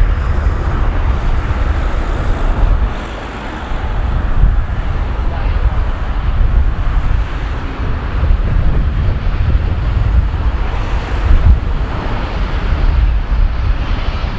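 Peppercorn A1 class three-cylinder 4-6-2 steam locomotive 60163 Tornado approaching under steam with a passenger train, heard through heavy wind rumble on the microphone.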